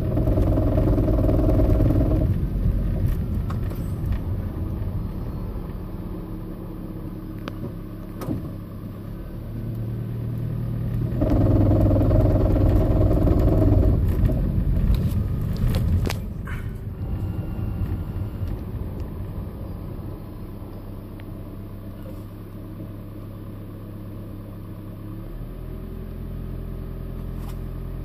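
2010 Toyota Prius hybrid driving stop-and-start, its 1.8-litre four-cylinder petrol engine humming and pulling harder twice, near the start and again about halfway through. A few sharp clicks come just after the second pull. This is recorded while chasing an intermittent knock, the 'raptor sound', that the owner finds easiest to reproduce at low speed under load.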